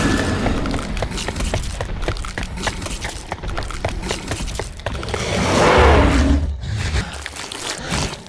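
Soundtrack music with a fast run of short thuds, swelling louder about five to six seconds in.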